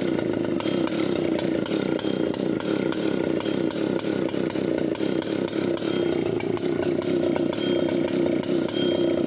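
Vintage Solo 92cc two-stroke chainsaw idling steadily with a low, thumping idle from its large piston.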